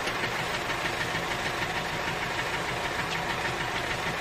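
Tractor engine idling steadily with a fast, even knock.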